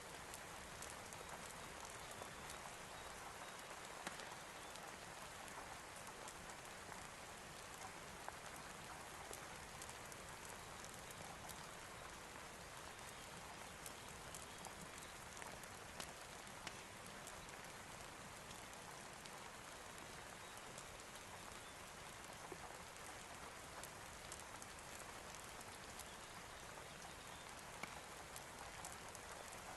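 Quiet, steady rain, with many small drop ticks scattered through it.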